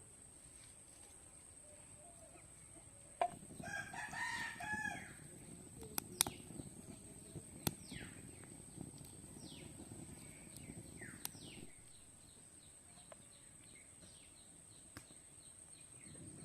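A rooster crowing once, about three seconds in, with a few sharp clicks and short falling bird chirps afterwards.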